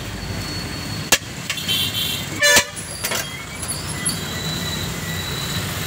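Steady street traffic noise at a roadside food stall. A short horn toot comes about two and a half seconds in, along with a few sharp clicks.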